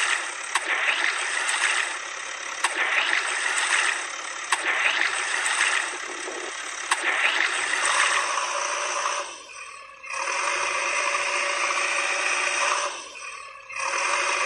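Engine-like machine sound with rattling. In the first half it swells and fades about every two seconds, with sharp clicks. It runs steadier after that, dropping away briefly twice.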